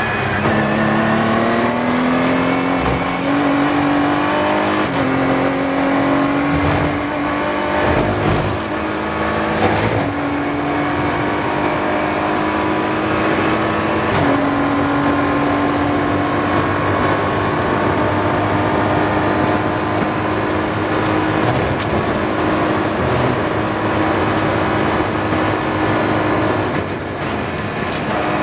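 Ginetta G56 GTA race car's 6.2-litre V8 accelerating hard from inside the cockpit: the engine note climbs through gearshifts in the first few seconds, then holds high and steady at full throttle in fifth gear, with a brief lift near the end.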